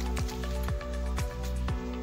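Background music with a steady beat: a deep bass drum about twice a second under held tones.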